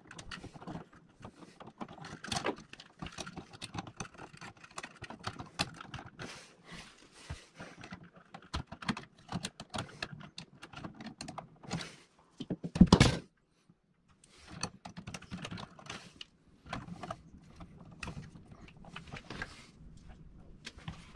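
Small clicks, taps and scrapes of a screwdriver and pliers working the terminal screws and wires of a wall switch. One loud thump comes about two-thirds of the way through.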